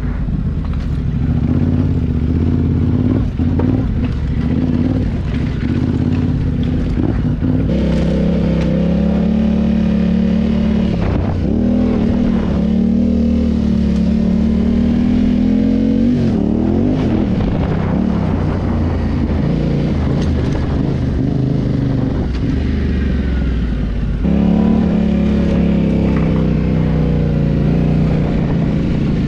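Yamaha Ténéré adventure motorcycle's engine running as it is ridden slowly over rough ground, the note rising and falling with the throttle. It gets louder about eight seconds in and again near the end.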